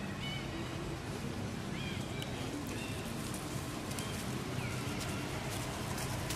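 Short, high-pitched animal calls, several of them in the first few seconds, over a steady low hum.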